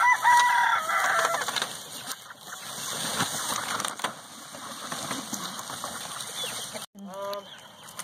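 Chickens in a chicken tractor: a rooster crows once at the start, then hens cluck amid the rustle and scrape of the wire pen being dragged across the grass.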